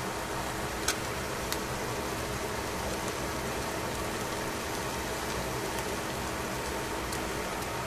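Mackerel fillets sizzling on foil in a hot pan: a steady crackling hiss of cooking fat, with two sharp pops about one and one and a half seconds in, over a faint steady hum.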